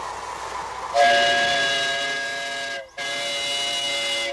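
Live-steam miniature locomotive's whistle blowing a chord of several tones: a long blast of about two seconds starting a second in, a brief break, then a second blast, over hissing steam.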